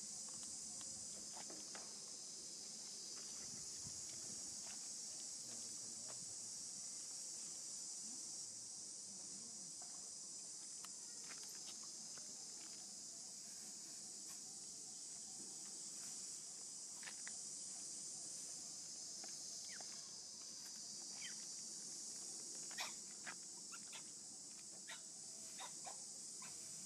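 Steady high-pitched chorus of insects droning throughout, with a few sharp clicks in the last few seconds.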